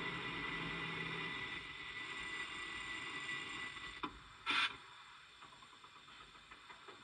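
Class 70 diesel locomotive sound from a DCC sound decoder, played through a model locomotive's small speaker: a steady running sound that stops about four seconds in, followed by a click, a short hiss and near silence.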